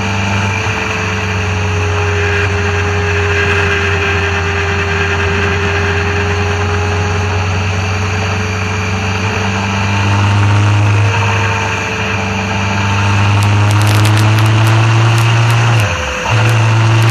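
Motorcycle engine running steadily under way, with wind and road rush. It gets louder and pulls harder over the last few seconds, then dips briefly about a second before the end, as at a gear change, and picks up again.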